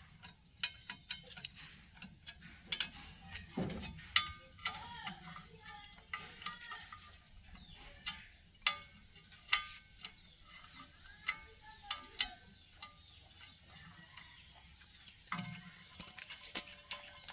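Hand ratchet wrench clicking as it turns a socket on a bolt, in irregular runs of sharp metallic clicks and clinks, with a couple of dull knocks.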